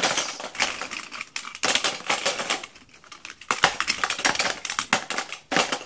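Plastic Pez dispensers clicking and clattering against each other as they are handled and put away, in rapid irregular runs with a short lull about three seconds in.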